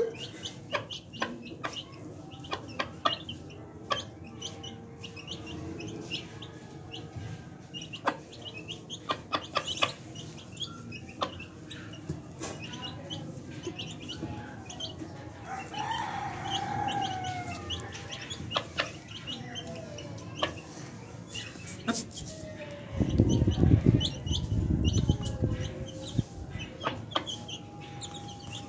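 Chickens feeding: a hen clucking and chicks peeping, with many short sharp ticks of beaks pecking on concrete. About 23 seconds in comes a louder low noise lasting a few seconds.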